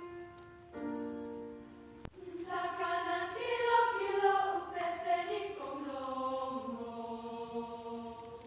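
A school choir begins singing about two and a half seconds in, after a single note and then a held chord sound its starting pitch. A short click comes just before the singing starts.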